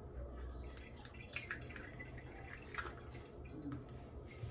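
A raw egg, already cracked, being pulled apart and its contents dropping into a stainless steel mixing bowl: a few faint clicks of shell and soft drips.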